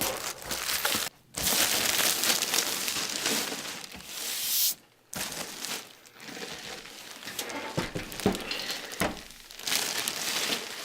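Packaging rustling and crinkling as a PC case is unwrapped and lifted out of its box, with two brief breaks.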